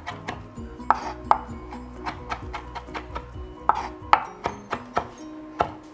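Chef's knife chopping parsley on a wooden cutting board: a run of irregular sharp knocks of the blade on the board. Quiet background music plays underneath.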